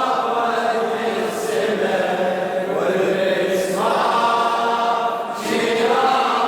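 A cappella chorus of voices in an Arabic religious lament (latmiya), holding long chanted notes without clear words. The held chord steps up in pitch a little under four seconds in.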